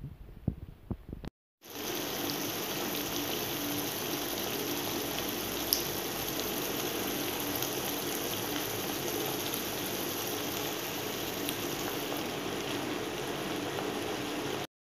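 Squid adobo sauce bubbling and sizzling in a pan as it simmers and reduces: a steady hiss with scattered small pops, starting about a second and a half in and stopping abruptly near the end. A few light clicks come in the first second.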